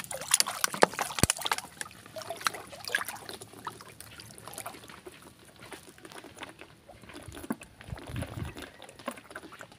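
Water sloshing and splashing, with many sharp knocks and clicks in the first few seconds that thin out afterwards.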